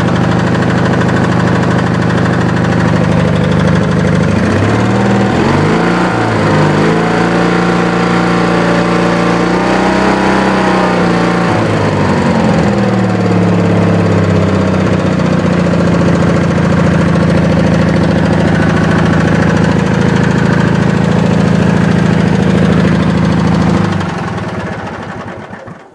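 Twin-cylinder Briggs & Stratton engine of a Wheel Horse garden tractor running on both cylinders after its dead cylinder was repaired. Its speed wavers and changes twice, about five seconds in and again around ten to thirteen seconds. Near the end it is shut off and winds down.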